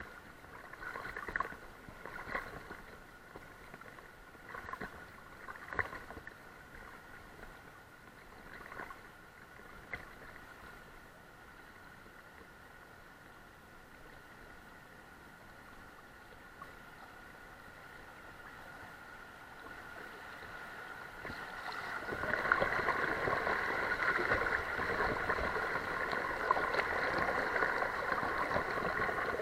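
River water lapping and splashing against a camera held at the surface, at first in scattered brief sloshes. About three-quarters of the way through it turns into a steady, louder rush as the current becomes fast and shallow over a riffle.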